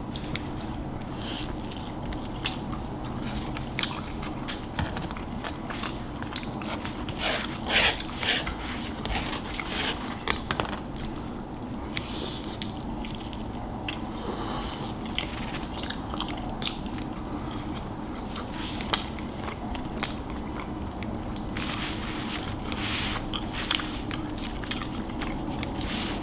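A person eating close to the microphone: biting and chewing, with a run of short clicky mouth sounds that grows busier about a quarter of the way in and again near the end.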